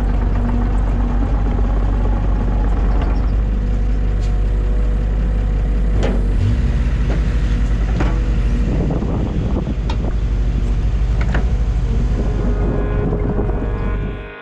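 Heavy machine's diesel engine running steadily, its note shifting about six seconds in, with a few sharp knocks between about six and eleven seconds in.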